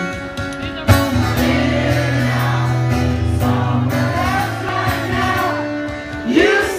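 Rock band playing a slow song live, with guitar, a sustained bass line and singing, heard from the audience.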